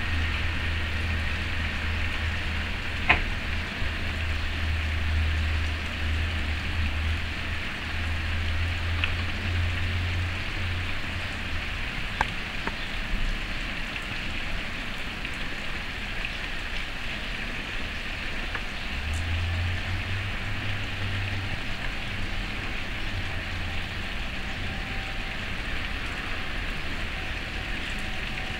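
Steady rain falling, an even hiss with a few sharp ticks of single drops. A low rumble runs underneath through the first third and comes back briefly later.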